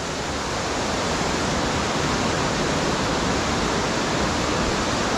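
Waterfall in full spate: a steady, even rush of falling water crashing onto rocks.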